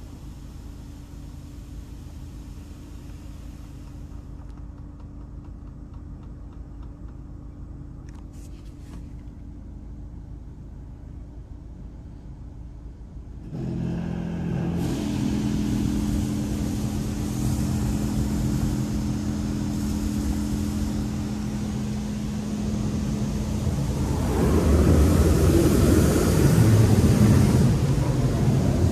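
Ryko Radius HT automatic car wash running. A steady machine hum, then about halfway a motor starts abruptly with a louder steady hum. Near the end a loud rush of water spray hits the car.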